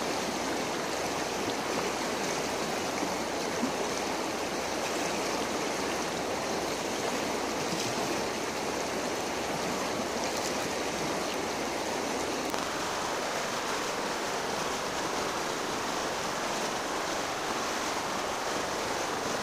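River water flowing steadily, a constant rushing hiss.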